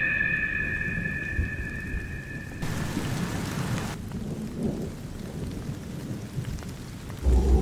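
Thunder rumbling over steady rain. A high held tone fades out in the first couple of seconds, and a deep low note comes in right at the end.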